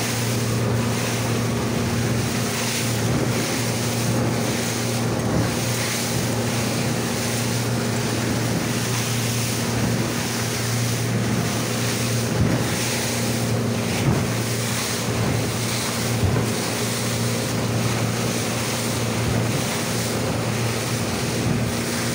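A boat's outboard motor running steadily at cruising speed, a constant low hum, under the rush of water and spray along the hull and strong wind buffeting the microphone. A few knocks come around the middle.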